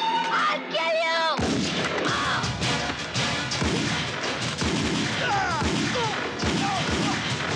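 Film gunfight: after a brief cry, a rapid string of gunshots and impacts starts about a second and a half in and keeps going, with voices crying out among the shots.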